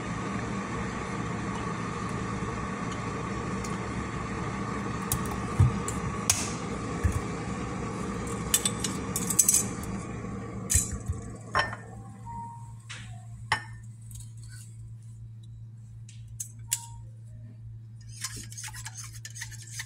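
Scattered clinks of a metal spoon against a ceramic mug, then a quick run of clinking near the end as the spoon stirs coffee in the mug. A steady hum runs underneath and stops about halfway through.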